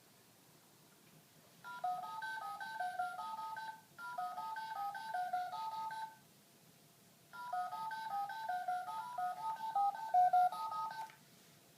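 Touch-tone keypad dialing tones (DTMF) beeping in quick succession, each beep two pitches at once, in three runs of rapid key presses that step up and down like a tune.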